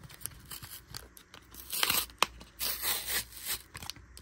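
Cardboard backing of a blister pack being torn and peeled off its plastic blister by hand: scattered small clicks and crackles, with two longer tearing spells about two and three seconds in.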